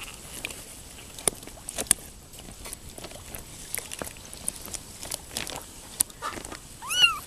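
Kittens wading and paddling in shallow water on a plastic pool liner: scattered small splashes and crinkles of the plastic sheet. Near the end comes one high kitten mew that rises and falls.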